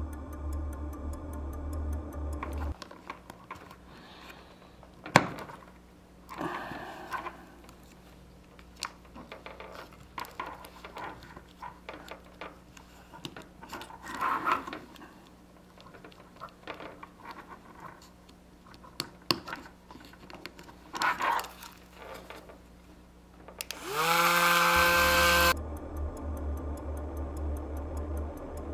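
Clicks, taps and small knocks of parts being handled on a wooden toy-car chassis and workbench, with one sharp click about five seconds in. About 24 seconds in, the car's small DC motor and plastic propeller spin up with a rising whine, run for about a second and a half, and stop abruptly.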